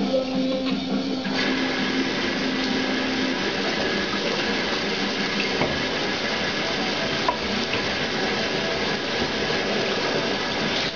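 Steady rushing hiss like running water, coming in abruptly about a second and a half in and holding steady.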